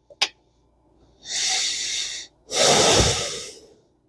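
A short click, then two hissing spray bursts of about a second each: an aerosol cleaner being sprayed onto fishing reel parts.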